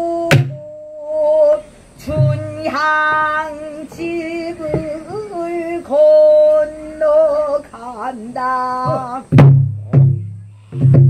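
Pansori singing: a woman's voice holding long notes and bending them up and down, accompanied by a buk barrel drum. The drum is struck a few times, with a quick cluster of strokes near the end.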